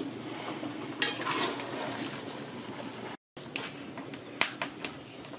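A pot of chicken boiling over a wood fire, giving a steady bubbling hiss, with a few short sharp clicks; the sound cuts out for a moment about three seconds in.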